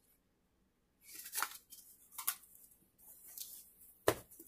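Faint, irregular rustling of a rolled diamond-painting canvas and paper sheet being handled and unrolled, starting about a second in, with one sharp tap or click near the end.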